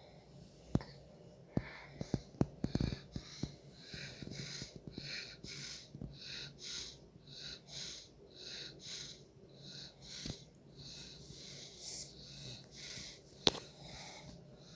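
Quick, airy breathing, about two to three breaths a second. Several sharp clicks come near the start, and a single loud click comes near the end.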